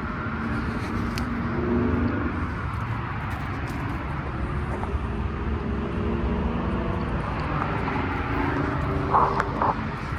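Outdoor air-conditioner condensing units running: a steady low hum with fan noise. Near the end come a couple of brief, louder, higher-pitched sounds.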